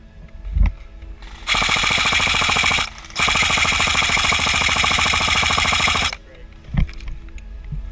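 Krytac Kriss Vector airsoft electric gun firing on full auto: two long bursts, the first about a second and a half, the second about three seconds, with a short break between. A single thump about half a second in.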